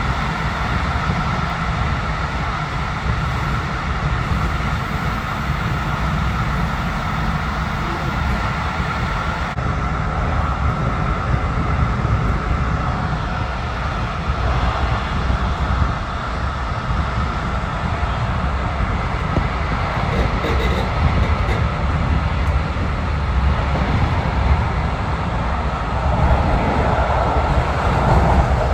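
Passenger train running along the track, heard from inside the carriage: a steady low rumble of wheels on rails with a faint steady whine, growing a little louder near the end.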